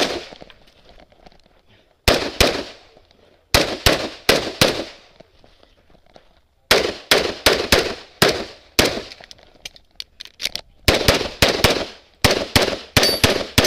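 Pistol shots fired in fast strings, mostly quick pairs, in several bursts with short pauses between them as the shooter moves through a practical-shooting stage. Each shot has a short echo.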